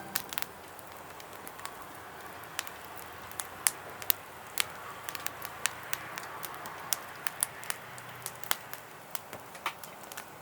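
Campfire crackling: sharp, irregular pops and snaps, a few louder than the rest, over a low steady hiss.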